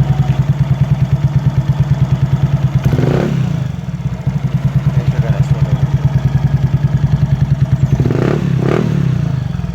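Yamaha Mio scooter's single-cylinder engine idling through an aftermarket Organ Sport v5 exhaust pipe with an even, steady pulse. The throttle is blipped once about three seconds in and twice in quick succession near the end, each rev rising and falling back to idle.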